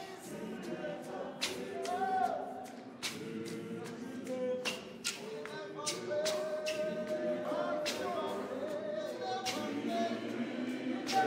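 Women's choir of a Zion church singing a gospel song a cappella, several voices in harmony.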